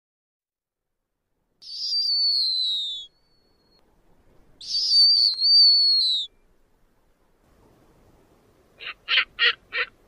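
Snowy owl calling: two long, high whistled screeches, each falling slightly in pitch, then a quick run of four short, harsh notes near the end.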